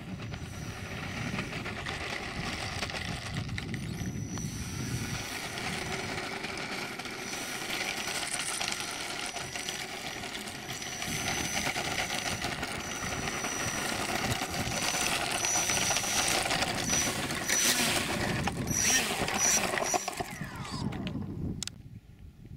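Electric motor and propeller of a Quickie 500 RC plane running with a thin high whine while it taxis, growing louder as it comes closer. Near the end the pitch falls as the motor winds down and the propeller stops.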